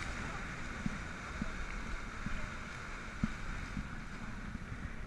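40-foot speedboat running over open water: a steady noisy rush of wind and spray along the hull with a low rumble, broken by a few short low thumps. The hiss of the spray slowly dies down as the wake shrinks.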